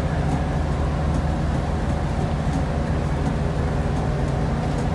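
Fishing boat's engine running steadily, a low, even drone with a noisy hiss over it.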